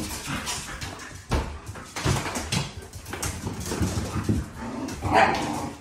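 Dogs playing rough: whining and vocalising through the play while their paws scuffle on a hard floor, with a louder, higher-pitched cry about five seconds in.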